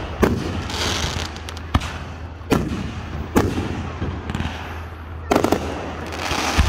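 Aerial fireworks bursting: a string of sharp bangs roughly a second apart, a quick cluster of several about two-thirds of the way in, with the crackle and hiss of the bursts between them.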